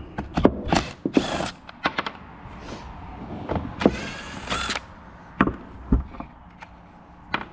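Hard plastic clicking, knocking and scraping as a VDO blower motor is twisted and worked loose from a 2001 Jeep Wrangler TJ's plastic heater box housing. Two longer scrapes stand out, one about a second in and one just past the middle.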